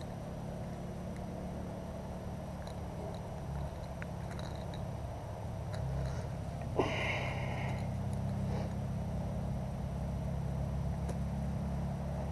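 Handling noise as a small fish is unhooked by hand with forceps: a steady low rumble with a few light clicks, and a sharp click about seven seconds in followed by a brief higher sound.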